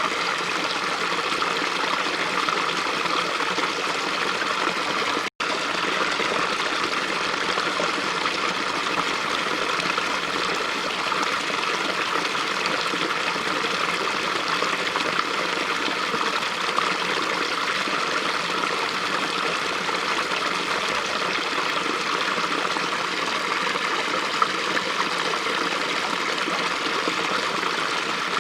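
Small brook flowing steadily, a continuous rush of running water, with a momentary dropout to silence about five seconds in.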